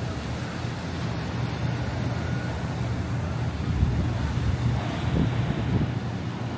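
Wind buffeting the microphone over a steady low rumble, gusting a little stronger about four seconds in.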